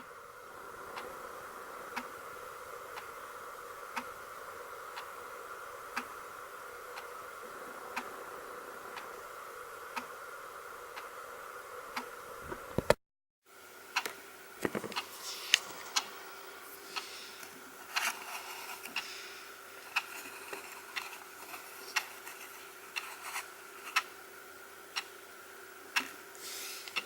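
Cheap 100-yen analog alarm clock ticking about once a second, tick-tock with every other tick a little louder; this is the ticking the owner found too noisy to sleep beside. The sound breaks off for a moment about halfway through, then the ticking resumes with some irregular clicks and scraping mixed in.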